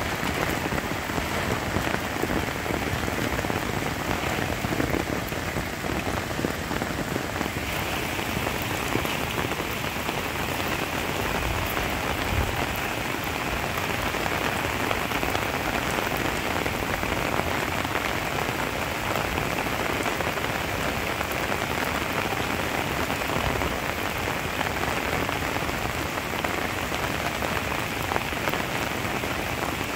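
Heavy rain falling steadily in an even hiss.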